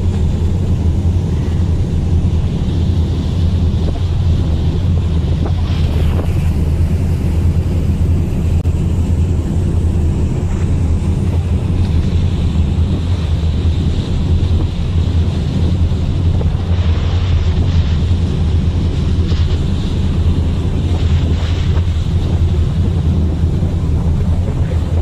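Wind buffeting the microphone in a steady low rumble on a moving cruise ship, over the rushing wash of the sea along the hull.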